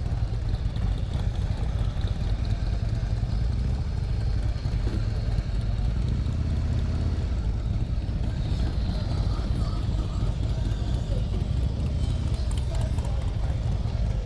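Harley-Davidson motorcycle engine running with a steady low rumble.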